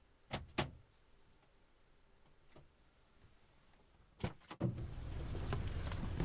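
Car door clicks: two sharp clicks near the start and two more about four seconds in. Then steady outside noise comes in as the door opens.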